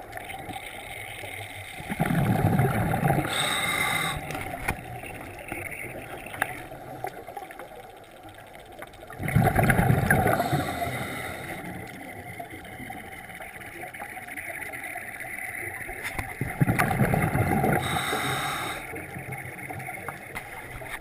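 A scuba diver breathing through a regulator, heard underwater: three rushes of exhaled bubbles, each about two seconds long, about seven seconds apart. A short whistling hiss of the regulator follows two of them.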